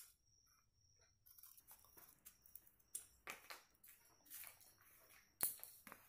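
Corrugated cardboard strips being handled and slid against each other: faint, irregular scrapes and rustles, with a few sharper taps, the loudest about five and a half seconds in.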